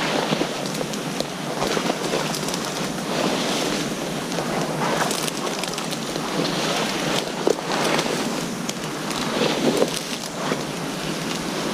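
Dry bracken ferns rustling and crackling against the legs of someone wading through them on foot, a continuous brushing noise broken by many short snaps.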